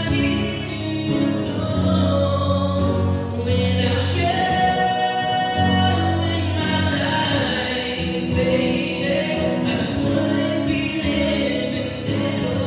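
Three men singing a slow ballad together in harmony over an acoustic guitar, performed live.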